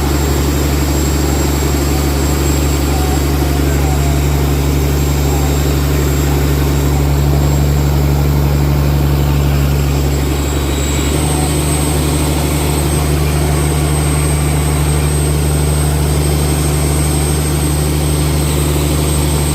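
Fishing boat's engine running steadily with a low drone. Its pitch shifts slightly about halfway through.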